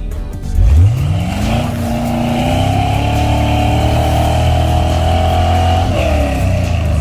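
Jeep engine revving hard under load: the pitch sweeps up sharply just after the start, holds high and creeps a little higher for about five seconds, then drops off near the end.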